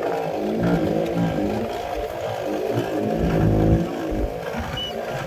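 A fishing boat's engine running steadily.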